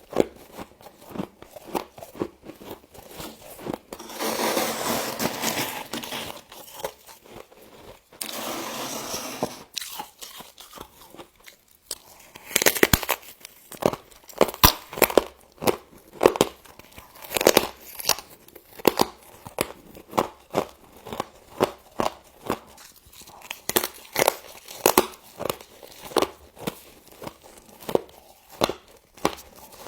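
Mouthfuls of frost being bitten and crunched, in quick crisp crunches that come thick and fast through the second half. Two longer stretches of rustling, crumpling noise come about four and eight seconds in.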